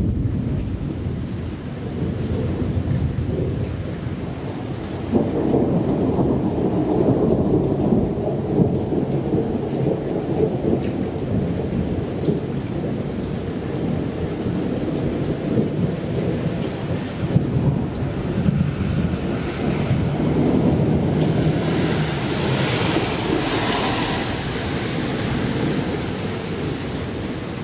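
Thunder rumbling over steady rain, the rumble swelling about five seconds in and again around twenty seconds in, with a hissier stretch near the end.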